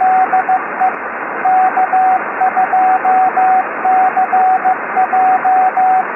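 Morse code (CW) signal heard on a ham radio receiver: a single steady beep keyed on and off in dots and dashes over a continuous hiss of band static.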